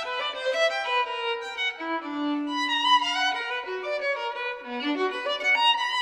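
Instrumental background music: a single melody line of held notes with no bass under it, one note held for about a second near the middle.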